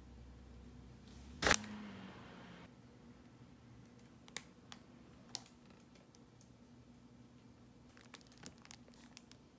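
Groceries being handled while unpacking: a sharp knock about a second and a half in, then scattered light clicks and crinkles of packaging, a cluster of them near the end.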